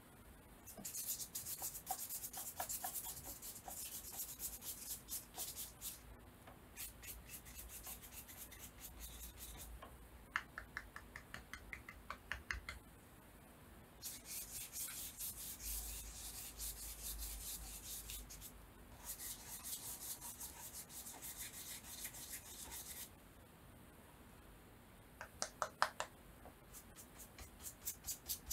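A stiff, nearly dry brush scrubbing gesso onto paper in quick back-and-forth strokes, in about four spells of a few seconds with short pauses between them.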